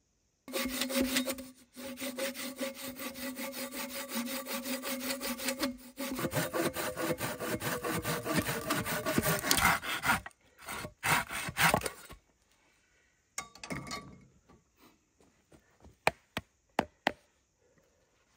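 Hand saw cutting through wood in quick, rhythmic back-and-forth strokes, with a ringing tone that sinks in pitch in the second half. The sawing pauses twice briefly and stops about twelve seconds in, followed by a few light knocks and clicks.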